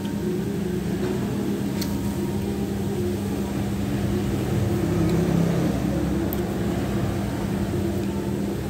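A steady low mechanical hum, with two faint clicks of cutlery on a plate, about two seconds in and again past six seconds.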